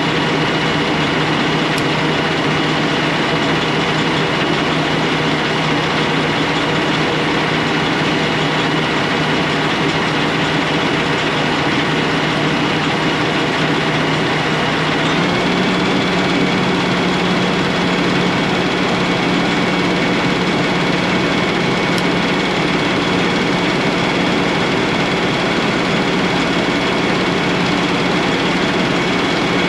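2022 Kenworth T680's diesel engine idling steadily, heard from under the chassis. About halfway through the engine note steps up to a slightly higher pitch and holds there.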